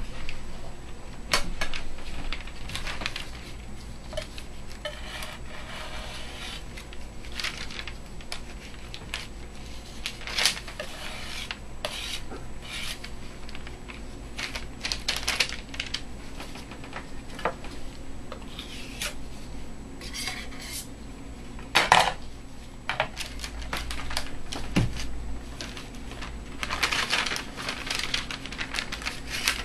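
Metal palette knife and scraper scraping oil-paint paste off a glass plate and onto a sheet of paper, with paper rustling and the knife clinking now and then. A sharp knock about 22 seconds in is the loudest sound.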